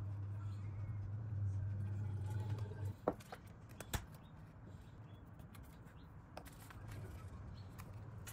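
A low steady hum that stops about three seconds in, then two sharp knocks a second apart as a glass spice jar with a plastic shaker lid is handled and set down on the kitchen worktop, followed by faint small ticks.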